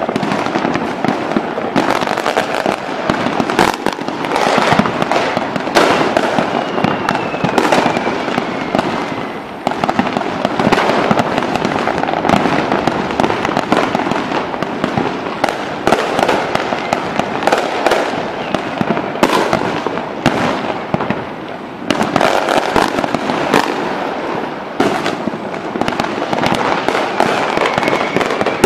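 Dense barrage of aerial firework shells bursting: rapid, overlapping booms and crackles with hardly a pause. About seven seconds in, a high whistle glides down in pitch over a few seconds.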